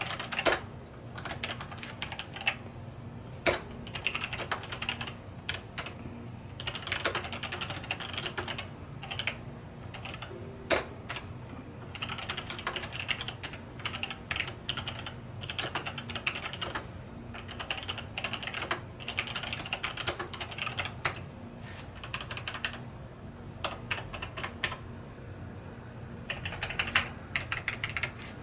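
Logitech G613 mechanical keyboard with Romer-G tactile switches being typed on, in bursts of rapid keystrokes broken by short pauses. A few single key strikes stand out louder.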